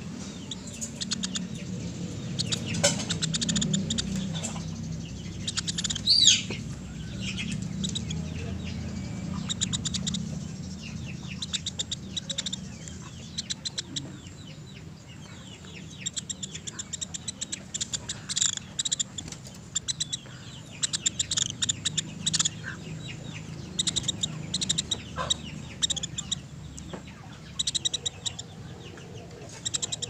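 Pelatuk beras woodpecker (freckle-breasted woodpecker) calling: repeated quick series of short, sharp, high-pitched notes, with one louder note about six seconds in, over a steady low background hum.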